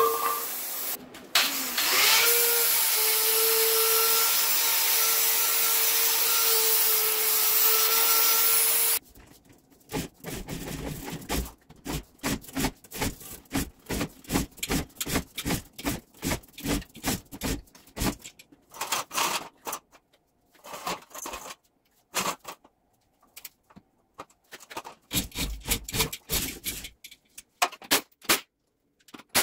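Oxy-acetylene cutting torch hissing steadily with a whistling tone as it cuts steel axle brackets, after a brief break near the start. After about nine seconds it stops abruptly, followed by a run of short rasping metallic strokes, two to three a second, that thin out into irregular clatters.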